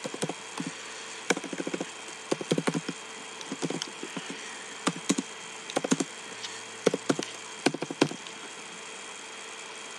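Typing on a computer keyboard: short runs of sharp key clicks with pauses between them, stopping about eight seconds in, over a faint steady hum.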